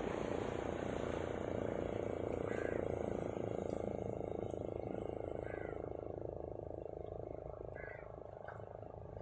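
Steady wash of sea water against breakwater rocks, slowly fading, with three short calls about two and a half seconds apart.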